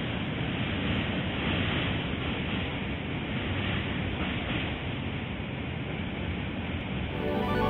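Steady rushing noise that swells and eases slowly, with nothing distinct standing out of it. Music comes in near the end.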